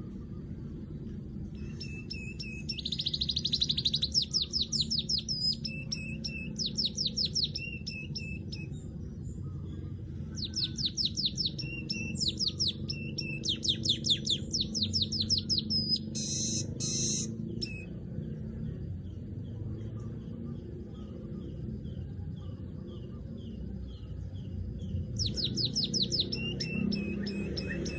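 Weaver bird (manyar) calling in bursts of fast, chattering chirps, a few seconds each with short gaps between, including a harsh rasping burst about two-thirds of the way through. A steady low hum runs underneath.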